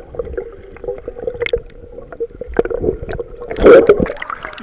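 Underwater sound picked up by a camera submerged in a swimming pool: muffled sloshing with small knocks, then a loud burst of bubbles near the end as a swimmer blows air out underwater.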